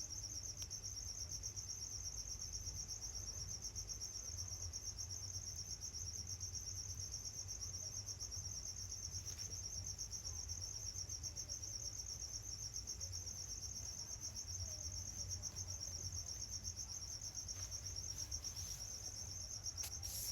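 Crickets trilling steadily, a high chirp pulsing several times a second without a break, over a faint low rumble.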